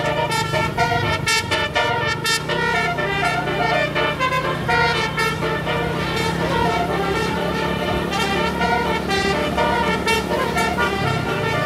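Tour bus's multi-trumpet 'telolet' basuri horn playing a quick tune of short, stepping notes, over the steady low hum of the bus's engine.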